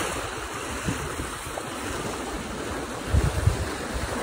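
Sea water washing alongside a small sailboat under way, with wind on the microphone and a few low wind buffets about three seconds in.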